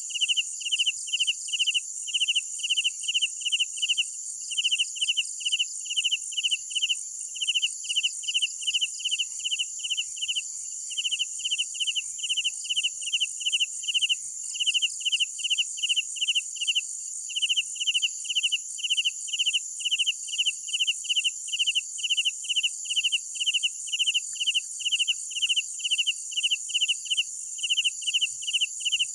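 Crickets chirping at night: one cricket gives clear, even chirps about three a second, pausing briefly now and then, over a steady high-pitched trill from more insects.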